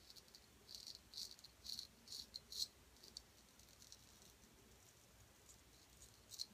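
Gold Dollar 800 straight razor scraping through lathered beard stubble: a quick run of short, faint scrapes in the first few seconds, then a few scattered strokes.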